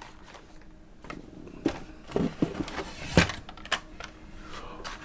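Handling noise from carded Hot Wheels die-cast cars being taken out of their shipping case: a handful of light knocks and plastic clicks, the sharpest a little past three seconds in.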